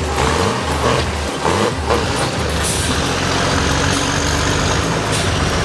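Heavy vehicle engine running hard with a deep, steady rumble, with a few knocks in the first two seconds.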